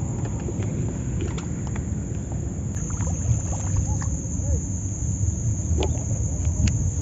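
Steady low rumble around a small fishing boat on choppy lake water, with a few faint clicks.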